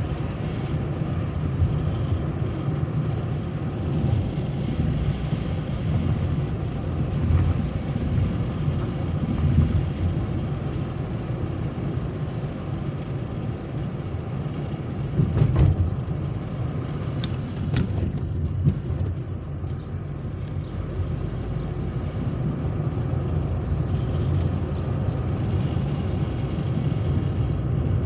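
A car driving at highway speed, heard from the moving vehicle: steady low engine and tyre rumble on asphalt, with a brief louder bump about halfway through.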